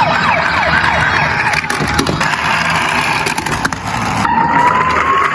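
Electronic sirens of toy ambulances sounding: a quickly repeating falling sweep at first, then a steadier, slowly rising tone near the end. Underneath runs the rolling noise of the toy vehicles, with a few clicks.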